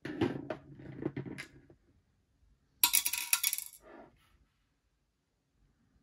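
Hard plastic housing of a Soundbot SB510 shower speaker being handled and pulled apart: scraping and knocking for the first second and a half, then a brief rattling clatter of hard parts about three seconds in.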